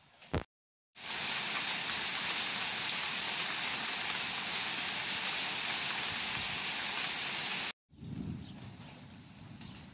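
Heavy rain falling as a loud, steady, dense hiss. It starts abruptly about a second in and cuts off suddenly near the end, leaving a much quieter stretch.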